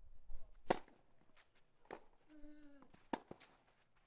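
Tennis racket striking the ball, faint and sharp: the serve about a second in, then rally shots about every second and a quarter. A brief pitched sound falls between the second and third shots.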